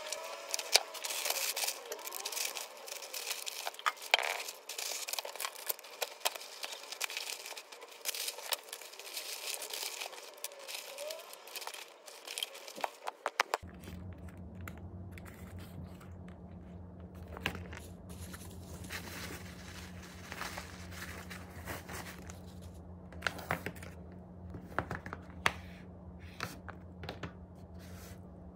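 Plastic packaging and containers handled on a tabletop: crinkling, tearing-like rustles and sharp clicks, busiest in the first half. After a cut about halfway through, lighter scattered clicks over a steady low hum.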